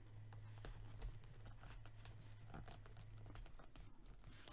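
Faint scattered clicks and taps of hard plastic being handled: a small plastic disc accessory being pressed and worked onto an action figure's plastic fingers, with one slightly louder click about a second in.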